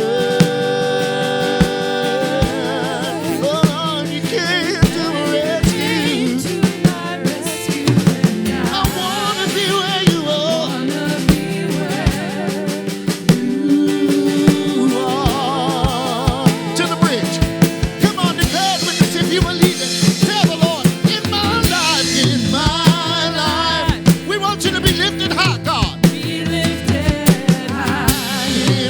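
Live contemporary worship band playing a song, with a drum kit keeping a steady beat under sustained chords and singing voices.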